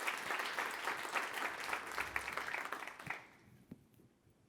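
Audience applauding, dying away about three seconds in, followed by a few faint clicks.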